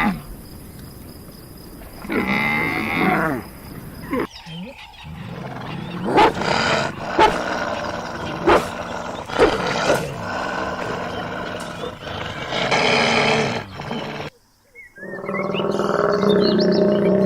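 A series of wild animal roars and calls, short clips cut one after another, with sharp knocks in the middle and a brief silent gap near the end before a low, steady call.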